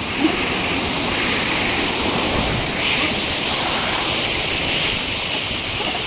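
Steady rushing of water, with no break or change.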